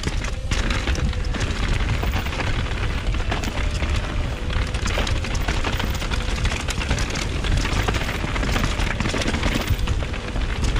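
Wind buffeting a helmet-mounted GoPro's microphone as a Vitus Sommet VR mountain bike rides fast downhill, with its tyres rolling over rough, stony grass trail and the bike rattling over the bumps in many small knocks.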